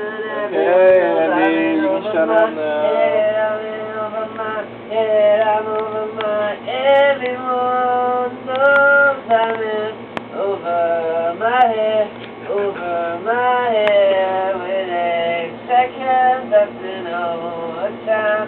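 Singing with music: a vocal melody of held notes that slide up and down between short breaks.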